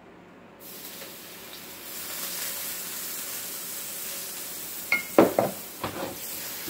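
Shaoxing wine and sesame oil sizzling in a hot carbon-steel wok, starting suddenly about half a second in as the liquid hits the pan and deglazes the seared beef residue. Around five seconds in, a few sharp metal knocks as the wok is moved on the burner.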